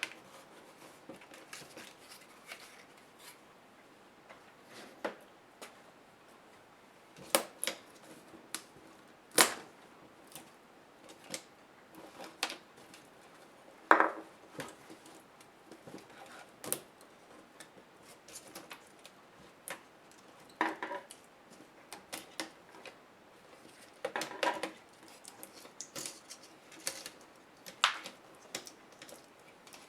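Laptop parts and small hand tools being handled during disassembly: scattered sharp clicks and taps of plastic and metal, a few of them louder, with short scraping sounds in between.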